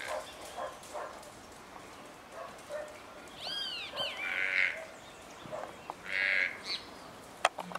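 Toucan giving short, rough, frog-like croaking calls, twice: about 4 seconds in and again about 6 seconds in. Just before the first croak come two quick rising-and-falling whistled notes, and a sharp click sounds near the end.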